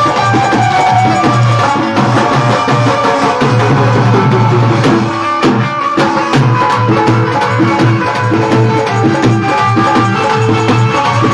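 Loud music with a dense, steady hand-drum beat over sustained instrument tones, played through a sound system.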